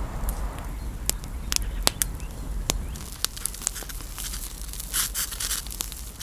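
Campfire of dry twigs and branches crackling, with sharp irregular pops and a short hissing burst about five seconds in.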